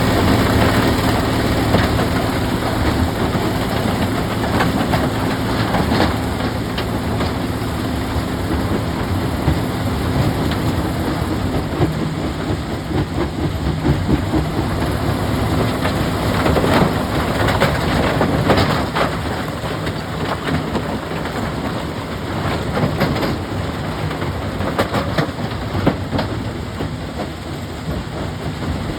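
A heavy machine's engine running steadily, with rocks knocking and clattering against each other and against metal again and again. The engine hum is plainest over roughly the first half and fades into the rock noise after that.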